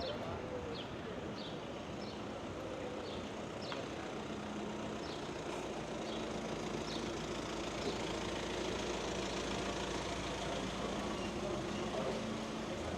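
Steady low mechanical hum of a running motor, with short high falling chirps repeating about every half second to a second, mostly in the first half.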